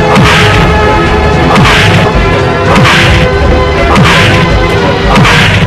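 Film background score with a short hissing hit and a brief falling low tone repeating about once every second and a bit, five times.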